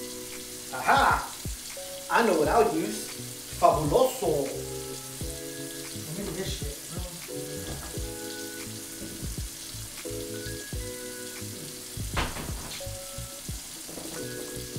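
Music with held chords that change every second or so, with a few loud swooping sounds in the first four seconds, over a steady sizzling hiss.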